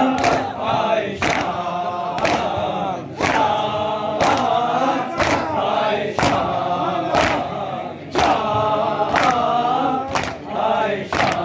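A group of men chanting a Shia nauha (mourning lament) in unison, with sharp slaps of hands on chests (matam) landing together about once a second in time with the chant.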